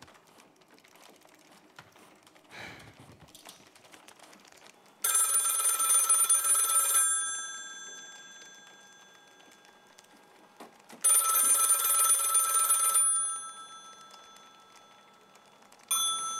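Desk telephone ringing: two rings of about two seconds each, six seconds apart, each fading out afterwards, then a third ring starting near the end.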